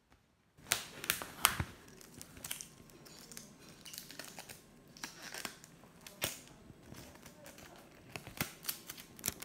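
Taped paper squishy shell being folded and creased by hand, the paper crinkling with a run of sharp crackles, loudest about a second in.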